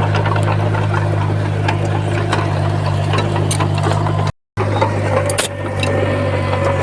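Bulldozer's diesel engine running steadily under a low hum, with scattered clicks and clanks. The sound cuts out completely for a moment about four seconds in, and a steady higher whine is heard after the break.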